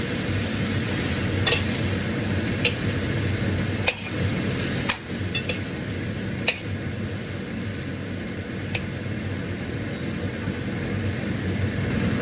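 Shredded chicken and bones sautéing in a large stainless steel pot, with a steady sizzle. A metal spoon stirs them and clinks against the pot about half a dozen times.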